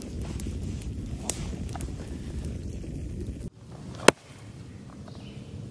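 Campfire crackling, with sharp pops from the burning wood over a low steady rumble. About three and a half seconds in the sound cuts off abruptly to a quieter background, followed shortly by one loud sharp pop.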